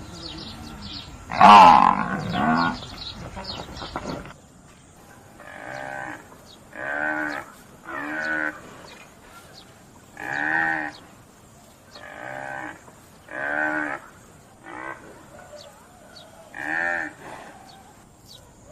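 Buffalo calling: one loud, drawn-out call about a second and a half in, then, after a cut, a run of about ten short calls, each about half a second long and spaced roughly evenly.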